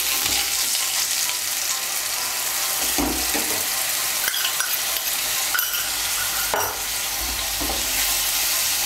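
A wet spice paste sizzles steadily in hot oil in a nonstick kadai. A black spatula stirs it and scrapes across the pan several times.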